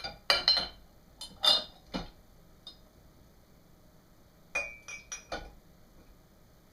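Dishes and glasses clinking together as they are set into a dishwasher rack: a cluster of clinks at the start, then another group a few seconds later.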